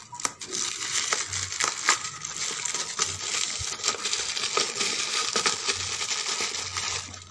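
Thin black plastic bag crinkling and rustling as it is handled and pulled off the top of a container of fermenting fruit-waste fertilizer, a dense crackle full of sharp crackles that stops near the end.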